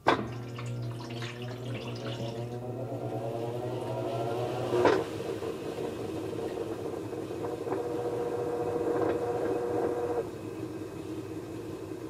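Admiral (Whirlpool) belt-drive top-load washer going into spin: the motor starts suddenly and a whine rises in pitch as the basket speeds up, with a loud clunk about five seconds in. It then runs steadily until the motor cuts off about ten seconds in and the basket coasts down without braking.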